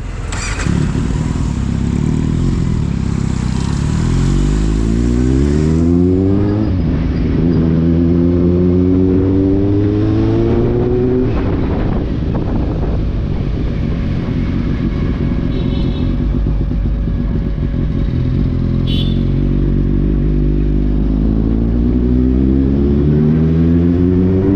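Kawasaki Z800's inline-four engine pulling through the gears while riding: its pitch rises in repeated climbs, drops back at each shift, holds steady for a stretch in the middle and climbs again near the end.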